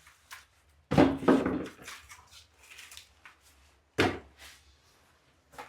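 Objects being handled and knocked about in a small room: two sharp knocks, about a second in and about four seconds in, with fainter scraping and rustling between them.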